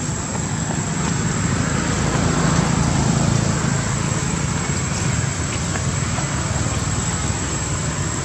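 Steady low rumble of road traffic, swelling about two to four seconds in as a vehicle passes.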